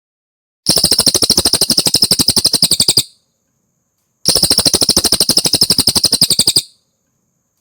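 Cililin song: two identical rapid trills of about a dozen notes a second, each lasting about two and a half seconds, with a short pause between them.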